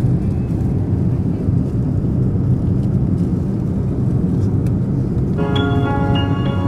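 Airliner cabin noise in flight: a steady, loud low rumble of engines and airflow. About five seconds in, music with ringing, sustained tones starts over it.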